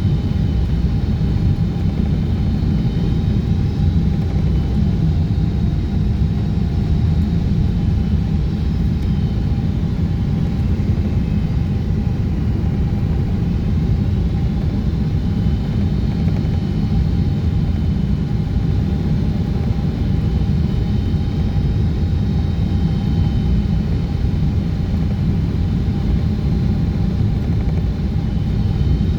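Steady cabin rumble inside a Boeing 777-200ER airliner on descent, with a faint steady whine from the engines over the low roar of airflow.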